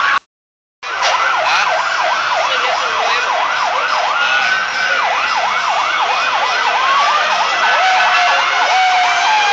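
Several sirens sounding at once, fast rising-and-falling yelps overlapping slower long wails. The sound cuts out completely for about half a second near the start.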